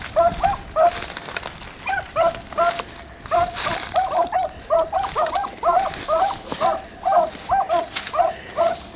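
Beagles baying on a rabbit's trail: a quick run of short, repeated yelps, several a second, with brief breaks about a second and three seconds in.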